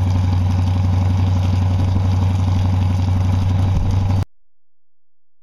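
Indmar Monsoon 350 5.7-litre V8 marine engine idling steadily while being run on propylene glycol antifreeze to winterize its cooling system, with the antifreeze splashing out of the exhaust. The sound cuts off suddenly about four seconds in.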